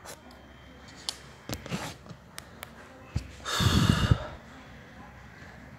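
A few light clicks, then a short, sharp breath out close to the microphone, about three and a half seconds in.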